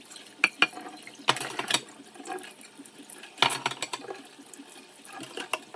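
Hand dishwashing at a kitchen sink: dishes knocking and clinking in the water, with splashing between the knocks.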